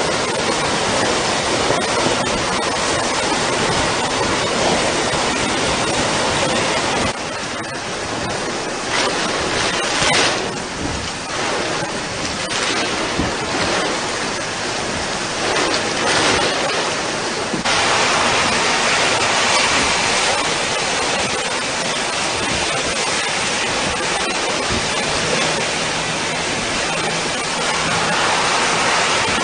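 Hurricane wind and driving rain: a loud, steady rushing noise that dips about seven seconds in and swells again a little before halfway.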